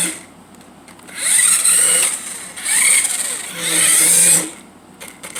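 Electric drive motor and gears of a Mario Kart remote control toy car whirring in three bursts as it is driven, the pitch rising and falling with each burst.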